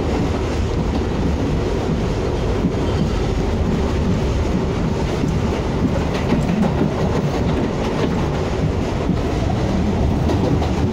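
New York City subway train running along the track, heard from inside the car: a steady noise of wheels on rails and the moving car.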